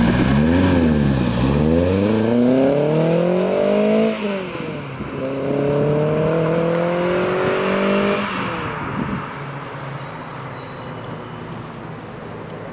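Renault Clio 16V's four-cylinder engine revving hard as the car accelerates away, its pitch climbing through the gears with two upshifts where the pitch drops, about four and about eight seconds in. After the second shift the engine sound fades into the distance.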